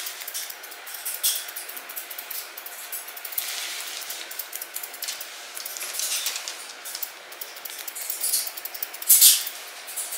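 Grooming scissors snipping through a dog's coat in irregular runs of crisp cuts and swishes, with a louder cut about nine seconds in.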